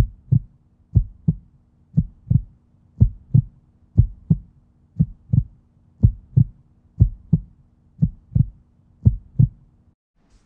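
Heartbeat sound effect: slow double thumps, about one beat a second, over a faint low hum. It stops abruptly near the end.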